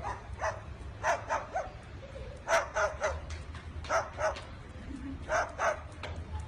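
A dozen or so short, high yapping barks, coming in quick clusters of two or three.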